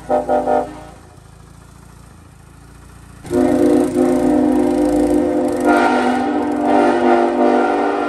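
Nathan Airchime K5LLA five-chime train horn (post-2016 Union Pacific raised-letter version) sounding its chord: a couple of quick short toots right at the start, a pause of a few seconds, then one long sustained blast from a little after three seconds in.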